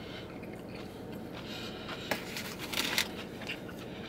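A person chewing a mouthful of Bonchon crunchy fried chicken and greens, with crisp crunches about two seconds in and a cluster of them around three seconds.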